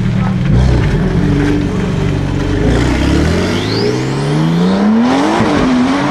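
Porsche 992 Turbo S with an Akrapovic titanium exhaust, its twin-turbo flat-six running at low revs as the car rolls out, then accelerating away with the engine note rising steadily for about two seconds and dipping briefly near the end.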